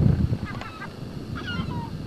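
Birds calling, short falling calls repeated several times a second. A low rumble sits under the calls in the first half second.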